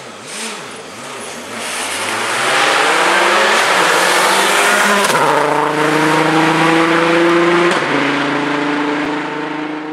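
Rally car engine revving hard: the revs rise and fall over the first couple of seconds, then it passes loud and holds high revs as it pulls away, with a short break for a gear change about eight seconds in.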